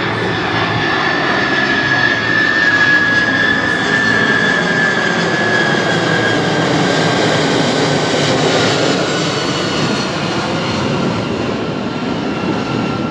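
The four CF6 turbofan engines of a C-5M Super Galaxy flying slowly past in landing configuration. Under a steady jet rumble, a high engine whine slowly falls in pitch as the aircraft goes by.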